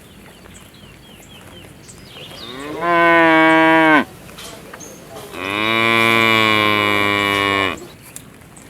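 A cow mooing twice: a call of about a second and a half, then a longer one of about two seconds. Each call rises at the start and drops off at the end.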